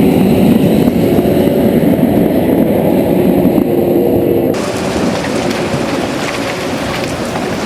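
Heavy machinery engine running steadily, with a low engine hum under a rushing noise; the sound changes abruptly about four and a half seconds in, where one clip gives way to another.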